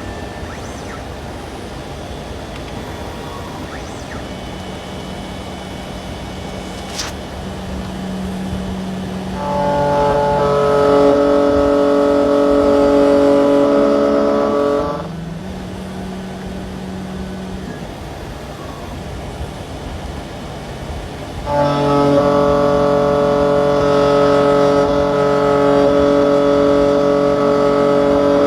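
Electronic key-cutting machine milling a high-security (sidewinder) Honda key blade. Its cutter motor gives a steady whine that comes in twice: for about five seconds near the middle, and again through the last seven seconds, over a lower hum.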